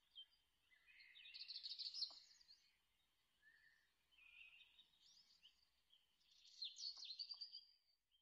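Faint songbird song: bursts of rapid, twittering trills, loudest about two seconds in and again near the end.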